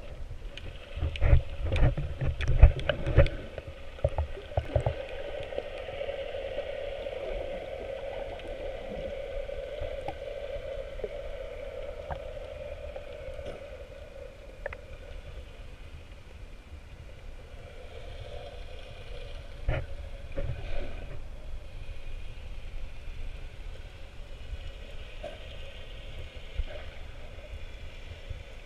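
Underwater sound picked up through a GoPro's waterproof housing: muffled water movement and low rumble, with a steady hum through the middle. A cluster of knocks and thumps comes in the first few seconds, and a few more about twenty seconds in.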